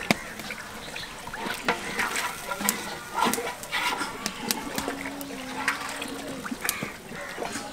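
A long metal spoon stirring broth in a large aluminium pot, with sloshing and splashing of the liquid and repeated sharp clicks of the spoon against the pot.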